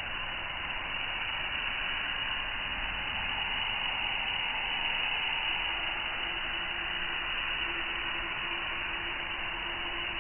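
Gravity-feed paint spray gun hissing steadily as it sprays the first coat of white paint over plastic primer on a plastic car bumper.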